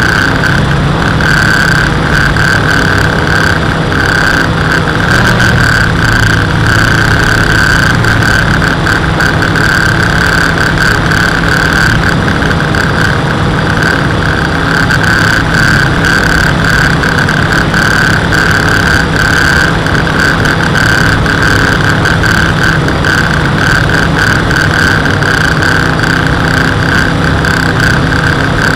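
WLtoys V303 Seeker quadcopter's motors and propellers in flight, picked up by the camera on board: a loud, steady high whine over a low hum.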